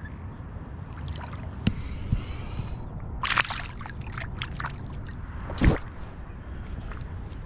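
Light spinning tackle being cast and worked from the bank. A brief hiss of about a second comes two seconds in, then a run of sharp clicks, and a single loud thump near the end, over a steady low rumble.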